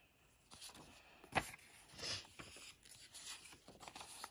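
Faint rustling and scraping of handheld paper cards as the top card is moved to reveal the next, with one sharper tap about a second and a half in.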